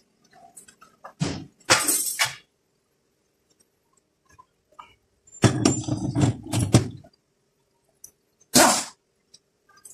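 Metal transmission parts clanking and knocking as clutch plates and drums are handled and lifted out of a GM 6T75 six-speed automatic transmission case: a couple of clunks about a second in, a burst of rattling knocks past the middle, and one short knock near the end.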